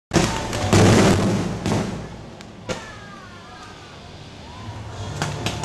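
Aerial fireworks shells bursting, several loud booms with crackle in quick succession over the first three seconds. It then dies down for a couple of seconds and builds again near the end.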